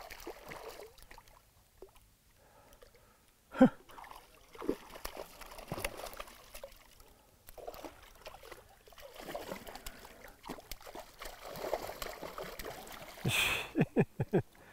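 A hooked trout splashing and thrashing at the surface of the lake, with one sharp knock about three and a half seconds in and a quick run of splashes near the end.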